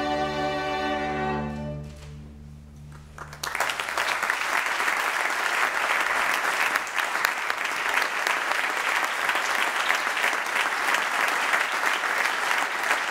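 A youth orchestra holds a closing chord that fades away, its lowest notes lingering longest. About three and a half seconds in, audience applause breaks out and carries on steadily.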